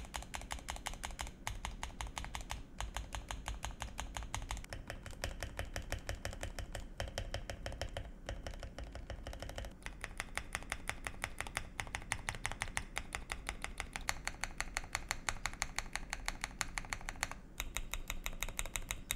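Fast typing on a mechanical keyboard, many key strikes a second with a few short pauses. Its stabilizers are lubed and Holee-modded, yet the owner finds them a little noisy.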